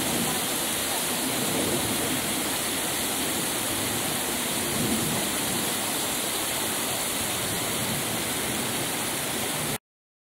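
Steady rush of flowing stream water, cutting off suddenly near the end.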